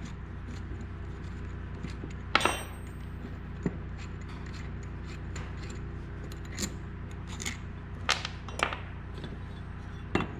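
Scattered light metallic clinks and taps from a bearing puller's bolts and parts being handled and fitted, over a steady low hum.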